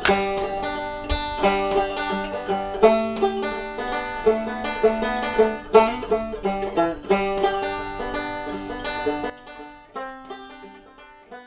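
Instrumental background music played on plucked strings in a bluegrass style: a quick run of picked notes that fades out over the last two seconds or so.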